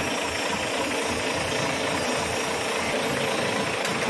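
Mitsubishi Fuso truck's diesel engine idling steadily, heard up close in the open engine bay.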